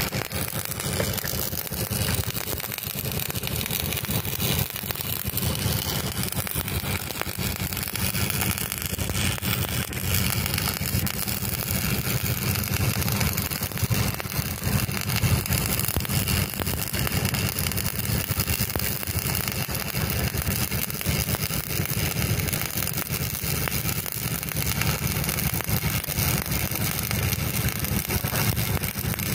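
Stick (shielded metal arc) welding: the electrode's arc crackling and sizzling steadily as a joint on a boat's propeller shaft fitting is welded in fixed pipe (5G) position, with a steady low hum underneath.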